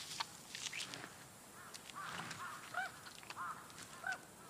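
Crows calling: about half a dozen short calls in quick succession, most of them in the second half, with scattered sharp clicks between.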